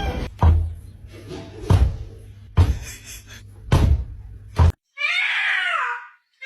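Five heavy thumps about a second apart, then a drawn-out cat meow starting near the end, falling in pitch.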